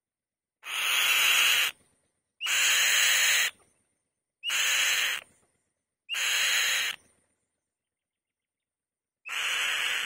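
Female white-tailed kite giving harsh, rasping screeches: five calls of about a second each, spaced a second or two apart.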